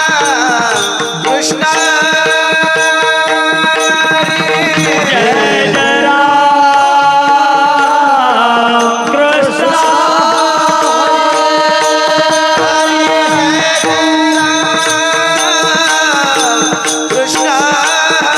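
Devotional kirtan singing: a voice holds long, ornamented notes that bend up and down over a steady sustained drone, with percussion accompaniment.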